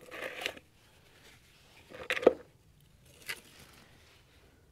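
Brief handling noises as masonry filler is worked from a bucket onto a concrete post: a short scrape at the start, a sharp knock about two seconds in, and a softer tap a second later.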